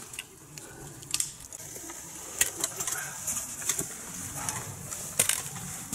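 Hiking footsteps on a rocky, icy trail, with trekking pole tips clicking sharply against the rock now and then, about once every second or so.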